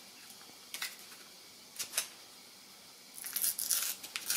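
Small packet of an alcohol cleaning wipe being torn open by hand: a few light crinkles, then a short run of tearing and crinkling about three seconds in.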